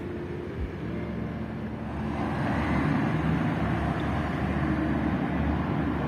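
Street traffic: a motor vehicle engine running close by, with a low hum and road noise that grow louder about two seconds in as it passes.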